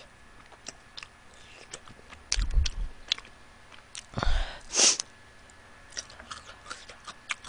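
Close-miked chewing with small mouth clicks, then sharp breaths blown out of the mouth about two and four seconds in, the loudest a hissing exhale near five seconds: open-mouthed breathing to cool a mouth burning from very spicy chicken wings.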